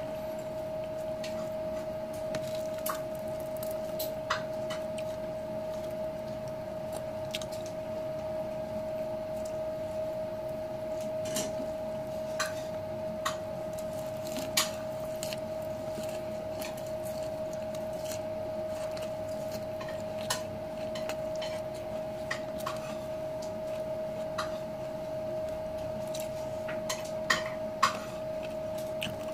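Eating with the fingers from a plate: scattered light clicks and taps of hand and food against the plate, over a steady hum.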